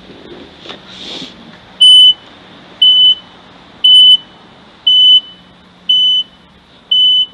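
Loud electronic beeping, one high single-tone beep about every second, starting about two seconds in.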